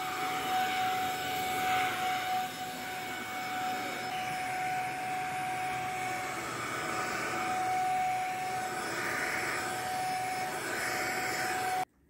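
Electrolux STK13 Power Speed 1000 W corded stick vacuum running steadily with a whine, vacuuming up biscuit crumbs and hair from a tile floor. The sound cuts off abruptly just before the end.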